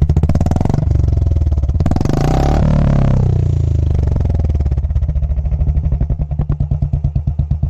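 Royal Enfield Bullet 350's single-cylinder engine running through a short aftermarket 'mini Punjab' silencer: it is revved once about two seconds in, the revs rising and falling back, then settles into a steady idle thump.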